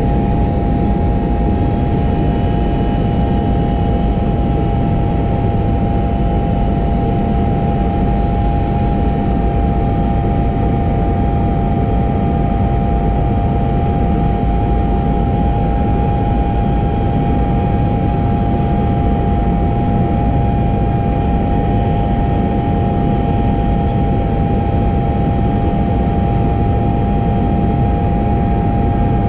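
Small propeller plane's engine and propeller heard from inside the cabin: a loud, steady drone with a constant pitched hum that holds without change.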